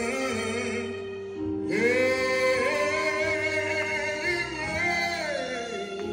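A man singing a slow gospel solo, holding long, wavering notes, with a short breath about one and a half seconds in before sliding up into the next held note. Instrumental accompaniment sustains steady chords underneath.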